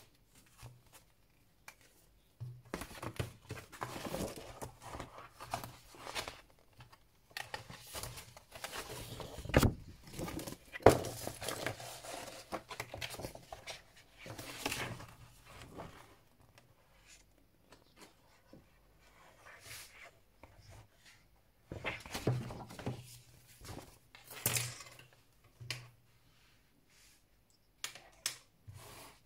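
Rustling and crinkling of a CD album's paper sleeve, printed pages and a clear plastic sheet as they are handled, in irregular spells with quiet gaps, plus a couple of sharp knocks about halfway through.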